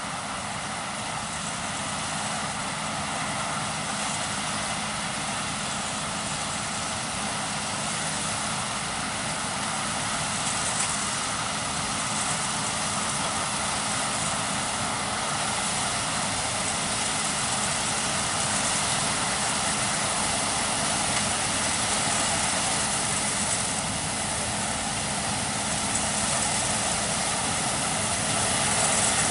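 Case IH 9230 combine harvester running under load while harvesting peas: its diesel engine and threshing machinery make a steady, dense drone with a constant low hum, growing gradually louder.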